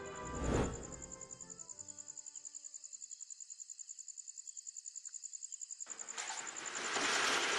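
A cricket chirping in a rapid, even, high-pitched trill while background music fades out. Near the end a rushing noise swells up over it.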